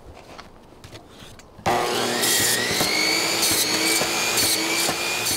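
A DeWalt chop saw starts abruptly about a second and a half in and runs with a steady motor whine that climbs slightly in pitch and then levels, its blade cutting through a whole silver salmon.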